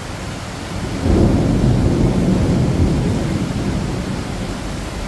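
Heavy tropical downpour with a thunderclap: a loud low rumble of thunder breaks out about a second in and slowly dies away over the steady hiss of the rain.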